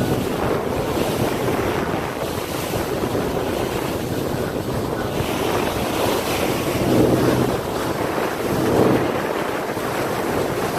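Wind buffeting the microphone over the rush of water from a yacht under way, with a faint low engine hum; the rush swells twice, about seven and nine seconds in.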